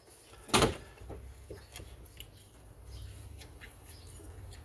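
Hands handling parts of a Stihl 031AV chainsaw while removing its recoil starter: one sharp knock about half a second in, then a scatter of small clicks and taps, over a low steady hum.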